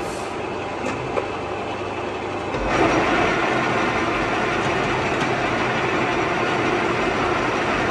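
TOS W100A horizontal boring machine running under power, with a steady machine hum that gets louder about three seconds in as its rotary table starts turning, then holds steady while the table keeps rotating.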